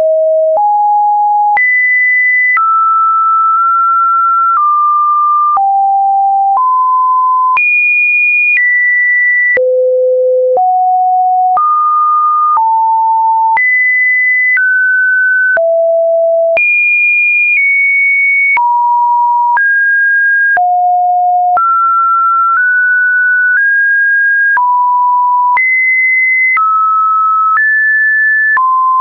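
Computer-generated pure sine-wave test tones, one steady tone about every second, each jumping to a new, seemingly random pitch in the mid-to-high range, with no pauses between them.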